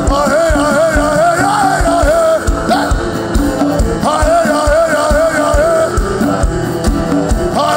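Live church worship music: a singing voice carrying a wavering, vibrato melody over a band with a steady drum beat.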